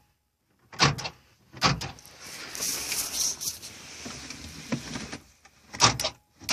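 Car door and power door lock sounds: sharp clunks about a second in and again near the end, with about three seconds of rustling, scraping noise between them.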